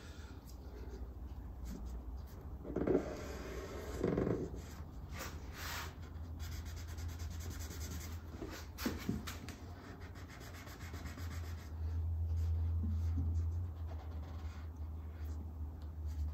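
Rubbing and scraping against an acoustic guitar's top around a freshly glued bridge, with small handling knocks: the squeezed-out glue is being wiped away.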